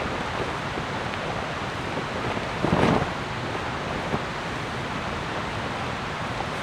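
Steady hiss of rain falling, with a brief louder rustle a little under three seconds in.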